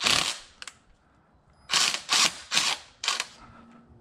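Ridgid cordless driver run in five short bursts, first at the start and then four quick ones in a row, driving an intake-manifold stud into the cylinder head with a stud installer.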